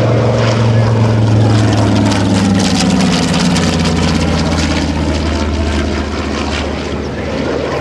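TBM-3E Avenger's Wright R-2600 fourteen-cylinder radial engine and propeller in a fly-by, loud and steady, the engine note dropping in pitch a few seconds in as the plane passes and heads away.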